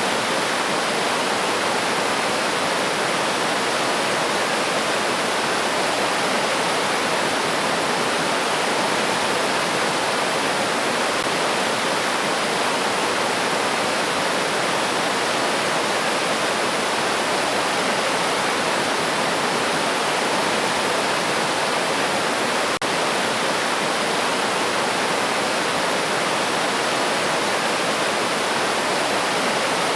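River water rushing steadily over rocks, an even, unbroken rush with a momentary dip about three-quarters of the way through.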